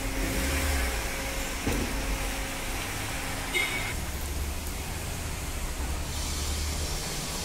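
Honda Brio hatchback driving off slowly: a low engine rumble over a steady hiss, with a short high chirp about halfway through.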